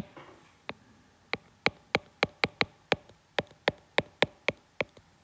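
Stylus tapping and clicking against a tablet screen while handwriting: a quick, uneven run of sharp clicks, about four a second.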